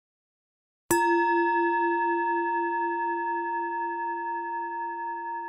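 A singing bowl struck once about a second in, then ringing on with a slow wavering pulse as it slowly fades. It is the cue for the change to the next hand position.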